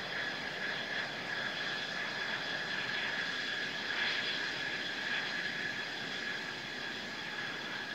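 Mitsubishi F-2 fighter's single F110 turbofan running at taxi power: a steady high whine over a rushing hiss.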